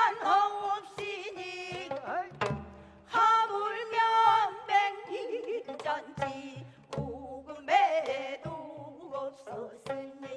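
Gayageum byeongchang: women singing in pansori style with wide vibrato while plucking gayageum zithers, with janggu drum strokes marking the rhythm.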